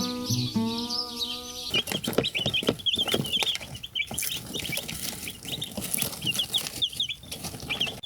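Background music ends a little under two seconds in, and then a brood of Australorp chicks peeps: many short, high peeps in quick succession, with clicks and knocks among them.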